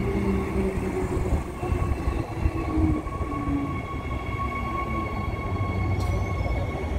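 Transperth B-series electric multiple-unit train moving past along the platform: a steady electric whine from the traction equipment over the rumble of wheels on the rails. A single sharp click about six seconds in.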